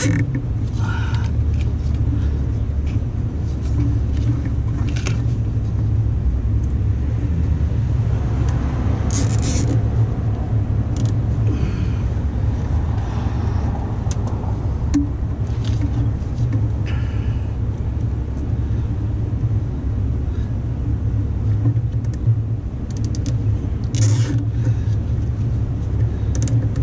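A steady low rumble runs throughout, with a few short clicks and rustles of hands fastening wire ties onto the cables.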